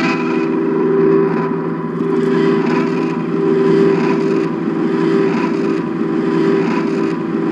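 Electric guitar chords strummed about once a second and left ringing, played through a circle of eight speakers in a lampshade that moves the sound around, so the level swells and dips.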